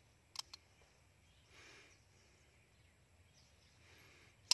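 Pistol shots fired at steel targets: one sharp report about half a second in, followed closely by a fainter crack, then a louder shot at the very end.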